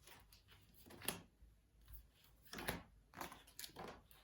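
Faint taps and rustles of letter cards being moved around and set down on a table, a few short handling sounds spread through the quiet.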